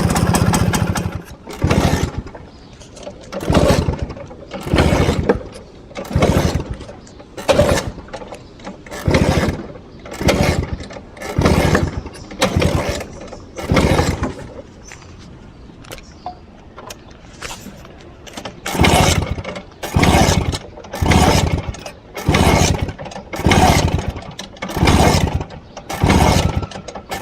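1963 Vespa VBB scooter's single-cylinder two-stroke engine stalling, then being kicked over again and again, each kick a short burst of cranking and sputter that doesn't catch: the warm engine won't start. The kicks come about one a second, with a pause of a few seconds midway.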